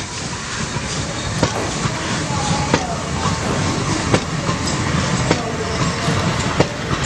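Model train running: a steady rumble with a sharp click about every second and a quarter, like wheels passing rail joints.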